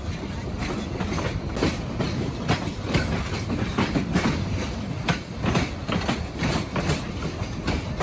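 Parabat Express passenger train running, its wheels clattering over the rail joints in a quick, uneven series of clicks over a steady rumble.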